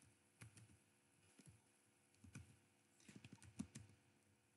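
Faint typing on a computer keyboard: a few single keystrokes, then a quick run of keys about three seconds in.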